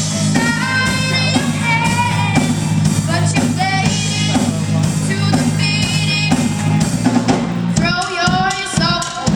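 Band music with a singer and drums over held low chords; the held chords drop out about eight seconds in.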